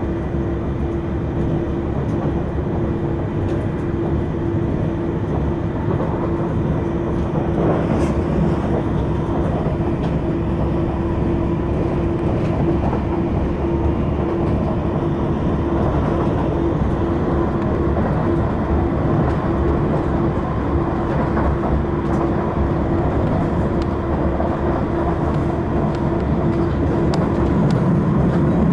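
Cabin sound of an Auckland AM class electric multiple-unit train running along the line: a steady rumble of wheels on track with a constant hum from the drive. A lower hum swells near the end.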